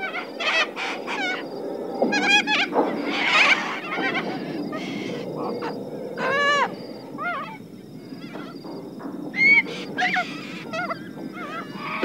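A flock of little corellas calling: many short, harsh squawks coming one after another and overlapping, some loud and close, others fainter.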